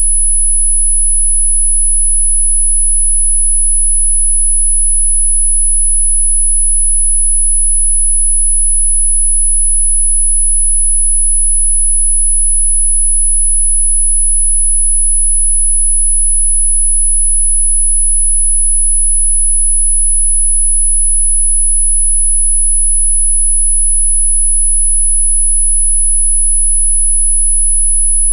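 Electronically generated 'healing frequency' sine tone: a single steady, high-pitched pure tone held without a break, with a much fainter low hum beneath it.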